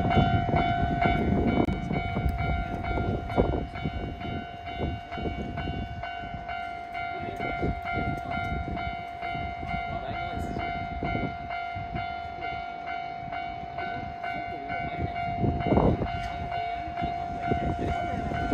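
Japanese railway level-crossing warning bell ringing without a break in a repeating pattern, over a train passing with a low rumble and a run of wheel clacks over rail joints, loudest near the start and again about sixteen seconds in.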